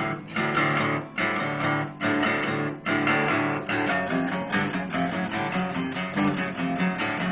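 Acoustic guitar strummed in chords that stop briefly about once a second, then going over into a quicker, unbroken pattern of notes for the last few seconds.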